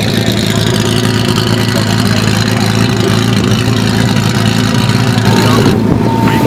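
Ferrari F40's twin-turbocharged V8 idling steadily, with an even low engine note.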